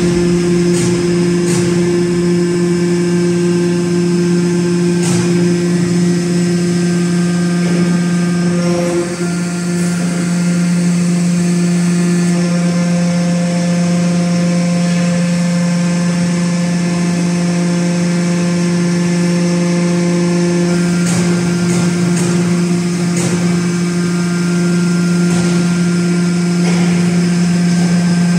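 Hydraulic power unit of a 1200-ton four-column hydraulic press running with a loud, steady hum as the slide moves slowly down. A higher tone joins for several seconds in the middle, and a few faint clicks sound now and then.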